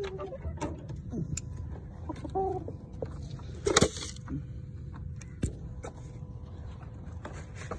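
Hens clucking now and then in a coop, among clicks and rattles of the wire-mesh door and its metal hook. A brief loud rustle about four seconds in.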